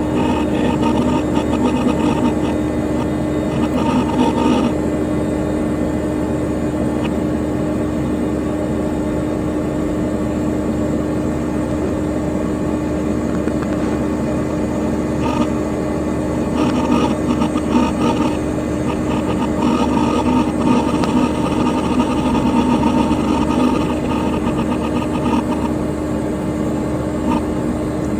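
Dell Dimension XPS P100c desktop computer's cooling fan running with a steady hum. Irregular bursts of hard drive activity sound over it for the first few seconds and again through much of the second half.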